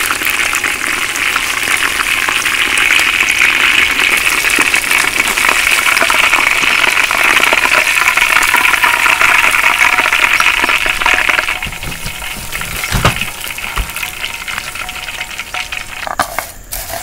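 Chicken pieces deep-frying in hot oil in a wok on their second fry, a loud, dense crackling sizzle. The sizzle drops off about two-thirds of the way through, and a single knock follows shortly after.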